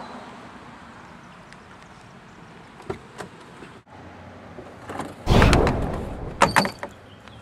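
A car door swinging open with a rush of noise, followed by a few sharp knocks as inline skates set down on the asphalt.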